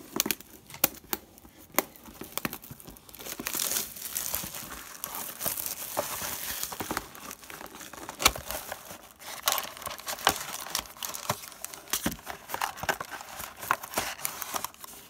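Plastic shrink wrap crinkling and tearing as it is peeled off a sealed trading-card box, with many small crackles and snaps. Near the end the cardboard box is opened and the foil card packs rustle as they are pulled out.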